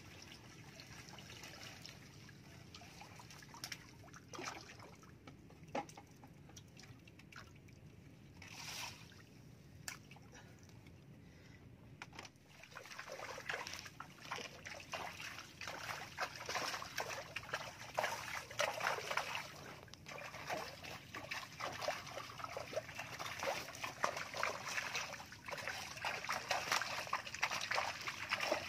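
Water sloshing and splashing inside a netted fish pen, with light scattered splashes at first and then busier, louder splashing from a little before halfway.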